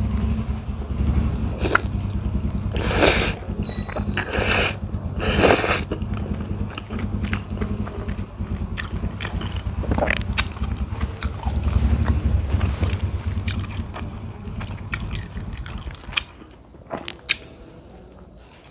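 Close-miked chewing of cheesy spaghetti with meatballs, with a few louder mouth noises about three to six seconds in. The chewing dies down near the end.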